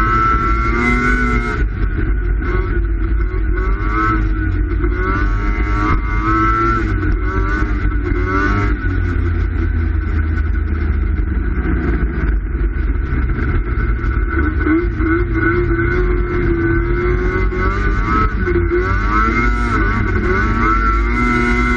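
Snowmobile engine running at speed, loud and steady, its pitch rising and falling over and over as the sled rides across the ice.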